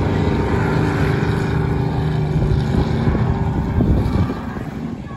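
Off-road race car engines running hard on a dirt track, a loud, steady drone that drops off about four seconds in.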